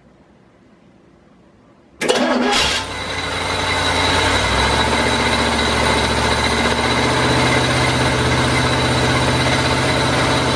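Chevrolet 350 small-block V8 starting about two seconds in: it catches within a second, the level climbs, and it then runs steadily.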